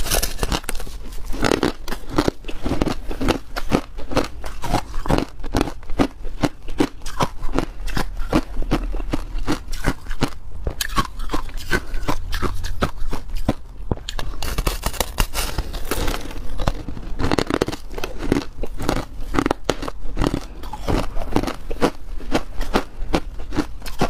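Crushed ice frozen into a blue slab being bitten and chewed: a dense run of sharp, crackling crunches that thins out briefly partway through.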